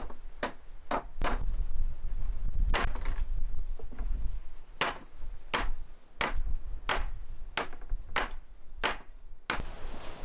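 Steel hatchet chopping along the edge of a wooden board to thin it: a run of sharp chops, roughly two a second in uneven bursts, that stops shortly before the end.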